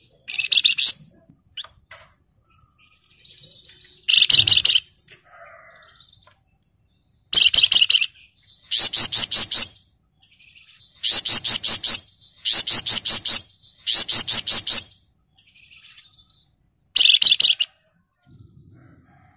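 Flamboyan songbird singing in short bursts of rapid, dense rattling trills, about eight bursts with brief pauses between them and faint twittering in the gaps.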